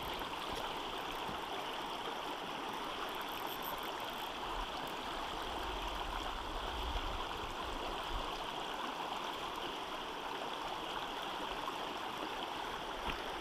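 Shallow river riffle running over stones: a steady rush and babble of flowing water.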